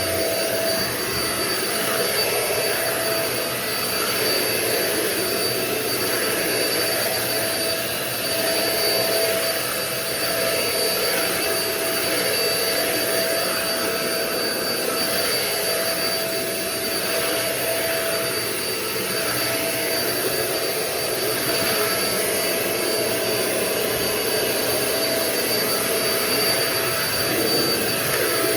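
Euro-Pro Shark bagless stick vacuum (EP600) running steadily, a constant motor whine over a rushing of air with only small swells in level. Its filter is half clogged.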